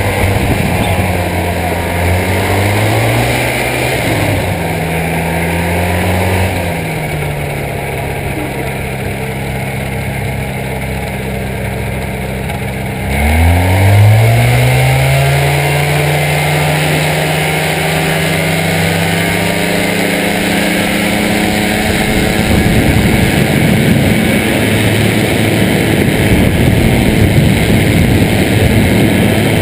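Rotax engine of an ultralight weight-shift trike running with its pusher propeller, the pitch wandering up and down while taxiing on grass. About 13 seconds in the throttle opens suddenly to full power for the takeoff run, and the engine then holds a steady high note as the trike climbs, with wind noise rising over it near the end.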